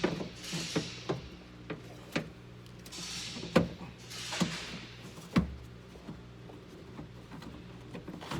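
Scattered knocks and clicks, with bursts of rubbing and scraping, as a door latch and lock actuator assembly is wiggled into place inside a car door's inner cavity. The knocks fall irregularly, several to the second at times, with the loudest about three and a half and five and a half seconds in.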